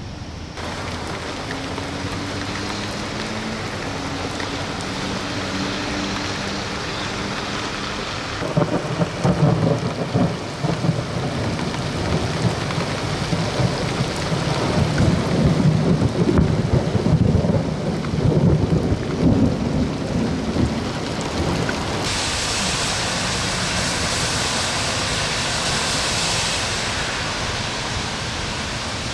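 Heavy rain pouring steadily, with a louder spell of low, irregular rumbling through the middle.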